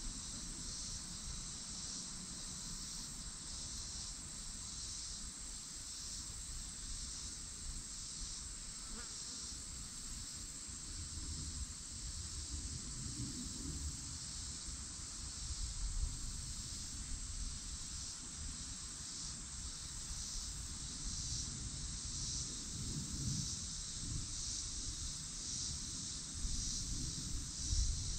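A steady high-pitched chorus of insects with a faint fast pulsing in it, over a low rumble.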